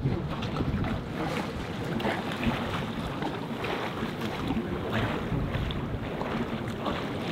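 Wind buffeting the microphone over choppy water slapping and splashing around the anchored boat.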